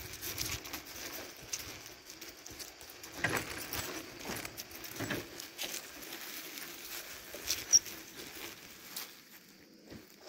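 Irregular rustling and crackling with scattered clicks, and one very brief high chirp about three-quarters of the way in.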